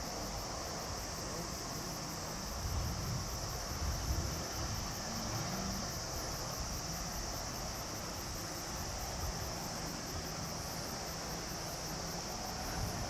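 Summer insect chorus: a steady high-pitched drone with a faster, even pulsing chirp above it, about four pulses a second. A faint low rumble swells and fades about three to five seconds in.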